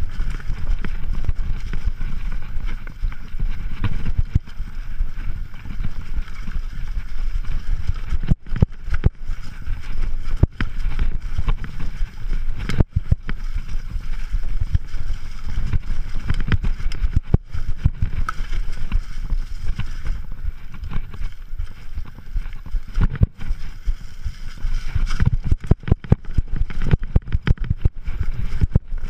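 Mountain bike riding over a rough, rocky trail: a steady low rumble with frequent knocks and rattles as the bike hits roots and rocks.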